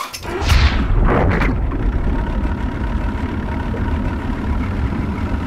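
A body plunging into water with a rushing splash about half a second in and a second smaller surge just after. Then a steady low, muffled rumble, heard as if from under the surface.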